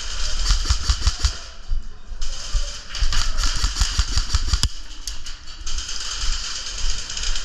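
Airsoft guns firing in rapid runs of sharp clicks, one about half a second in and a longer one from about three to four and a half seconds in, over a steady background hiss.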